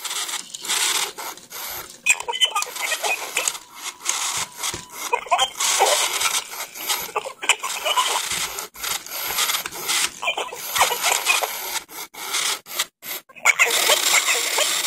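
A circuit-bent original Furby giving out glitchy, garbled, scratchy noise that stutters and cuts out abruptly again and again, with the newer blue Furby chattering along.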